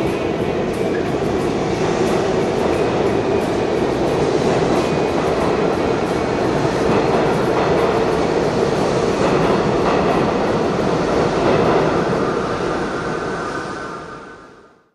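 New York City subway train running past the platform: a steady, loud rumble of wheels and motors that fades out near the end.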